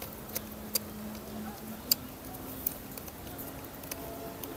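Scattered faint clicks and ticks of a tester screwdriver turning a brass terminal screw on a plastic switch board as a wire is tightened down. A faint steady hum runs behind.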